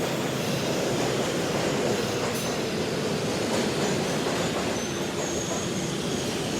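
Subway train running along the platform: a steady, dense rumble of wheels on rails, with faint high wheel squeals coming in briefly a few times in the second half.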